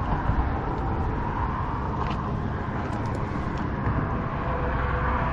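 Steady rumble of passing road traffic, with no single event standing out.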